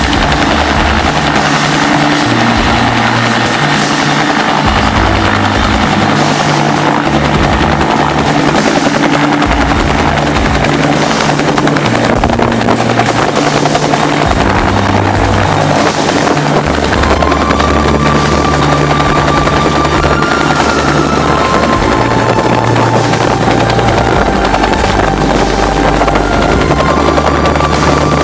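Bell 212 twin-engine helicopter at full rotor speed, lifting off into a low hover: the steady beat of its two-blade rotor over a high, thin turbine whine that rises slightly a few seconds in.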